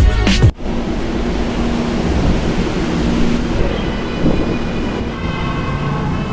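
A hip-hop beat cuts off about half a second in, giving way to steady background rumble with a low hum.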